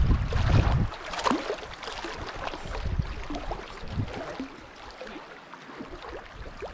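Wind buffeting the microphone for about the first second as a low rumble, then light rustling and small knocks as gear is handled at the bow of a canoe.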